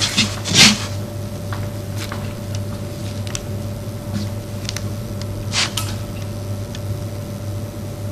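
Marker pen writing on a whiteboard: short squeaks and scrapes of the strokes, the loudest about half a second in and another about two-thirds through, over a steady low electrical hum.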